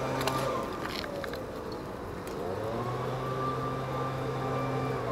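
A steady motor hum that drops out about half a second in and comes back about two and a half seconds in, with a few sharp clicks in the first second.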